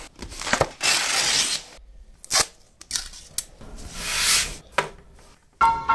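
Paper rustling as a large newsprint drawing pad is opened and its sheets turned, with a hand brushing across the paper and a few sharp taps and clicks in between. Plucked-string music starts near the end.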